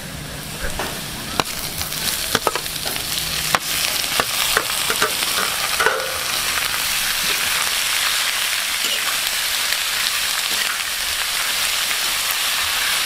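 Chopped pork intestines going into hot oil in a metal wok, pushed off a steel tray and stirred with a metal ladle. Clinks and scrapes of ladle on metal come first, then a steady sizzle that grows louder about four seconds in as the meat fries.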